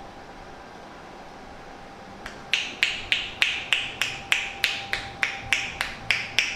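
A run of about fifteen sharp claps, evenly spaced at roughly three a second, starting about two seconds in, each with a short ring. These fit the rhythmic hand-clap percussion massage given in barbershops.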